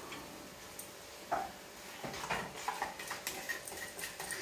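Light clicks and taps of plastic kitchenware being handled on a countertop: a small black plastic jug and its lid being picked up and set down. The clicks come faint and scattered, more of them in the second half.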